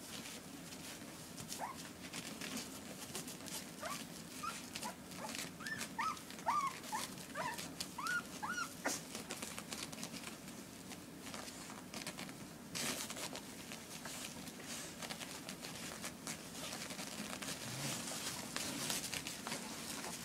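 17-day-old puppies squeaking and whimpering while they nurse. There is a quick run of short, high squeaks, each bending up and down in pitch, over the first half, followed by shuffling and rustling.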